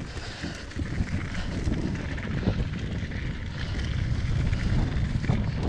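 Diamondback Mission 2 mountain bike rattling over a rough, bumpy dirt trail on a fast descent: a steady rumble of tyres with a constant run of small knocks and rattles from the bike, and wind buffeting the microphone.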